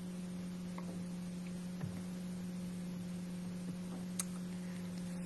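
Steady low electrical hum, like mains hum on the recording, with a faint click about four seconds in.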